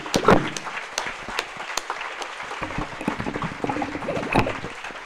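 Audience applauding: many hands clapping irregularly.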